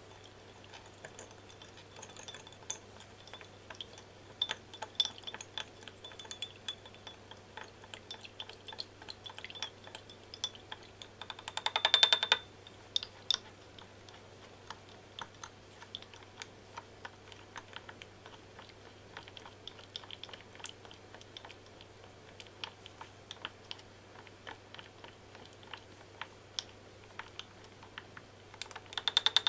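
Wooden spoon stirring a watery yeast and sugar mix in a drinking glass, knocking and scraping against the glass in scattered small clicks. A quick run of rapid clicks comes about twelve seconds in and again at the very end.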